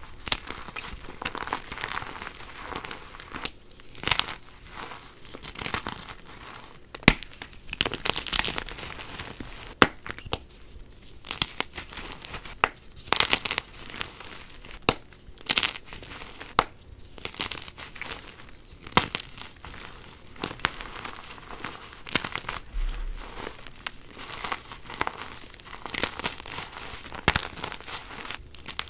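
Blocks of white gym chalk being crumbled and crushed by hand: dry, powdery crunching and crackling, with sharp snaps here and there as chunks break apart.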